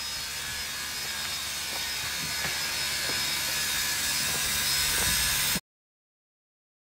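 Steam locomotive approaching at slow speed: a steady hiss of steam and running gear that grows louder as it nears, with a few faint ticks in the middle. It cuts off suddenly about a second before the end, leaving silence.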